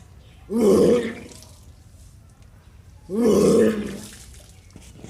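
A person retching loudly twice, about two and a half seconds apart, bringing up the water drunk for kunjal kriya (yogic stomach cleansing by vomiting).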